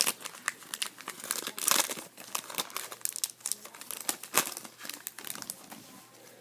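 Hockey trading cards and their pack wrapper being handled: crinkling and rustling with quick short clicks, busiest in the first two seconds.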